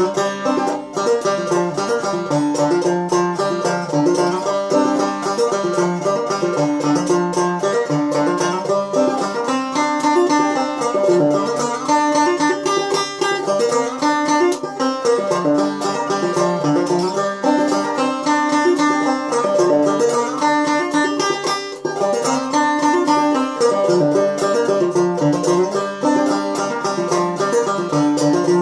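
Open-back banjo played clawhammer style: a steady, unbroken stream of quick plucked notes and brushed strums in an old-time tune.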